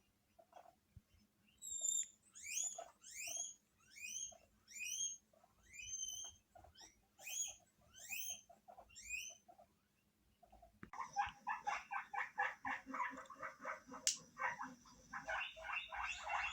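Guinea pig wheeking: about a dozen loud, rising squealing whistles, each a little under a second apart. About eleven seconds in they give way to a dense, rapid run of pulsing chirps with a thin steady high tone above, broken by one sharp click.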